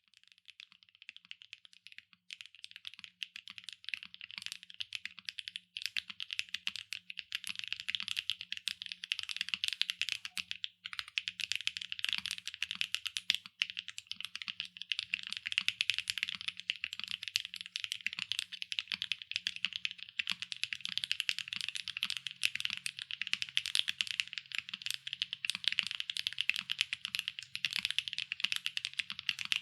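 Continuous fast typing on a SAAG65 mechanical keyboard with HMX Jammy linear switches, an aluminium plate, O-ring mount, no foam, and PBT/ABS double-shot keycaps: a dense stream of key clacks with no pauses, a little lighter for the first couple of seconds.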